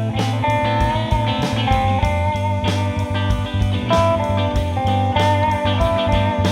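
Rock band playing an instrumental passage: an electric guitar holds and bends lead notes over a steady bass line and a regular drum beat.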